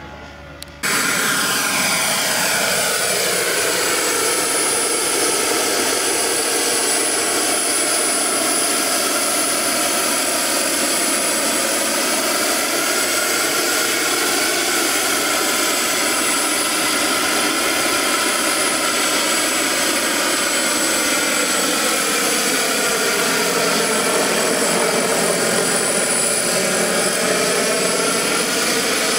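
Turbine-powered scale model Lama helicopter in flight: its small gas turbine gives a steady high-pitched whine over a loud rushing noise. The sound slowly swells and wavers as the helicopter moves about overhead. It cuts in suddenly about a second in.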